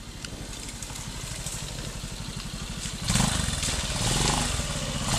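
Classic trials motorcycle engine running at low revs, the note getting steadily louder as the bike comes closer, then much louder from about three seconds in.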